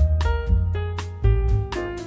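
Background music: piano and bass playing a melody with a steady beat.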